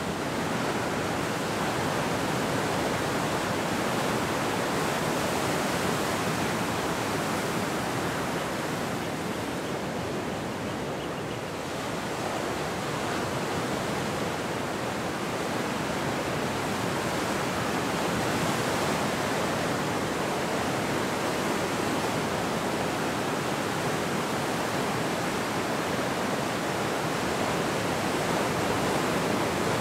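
Ocean waves breaking and surf washing ashore: a steady rushing noise that eases briefly about a third of the way through, then builds again.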